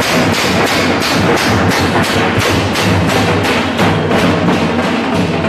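A group of frame drums beaten with sticks, playing a steady, fast rhythm of about three beats a second.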